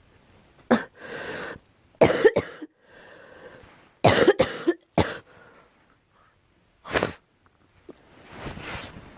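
A girl coughing in fits: a single cough, then a double cough, then a quick run of three, then two more single coughs, each a sharp sudden burst with quieter breathy noise between.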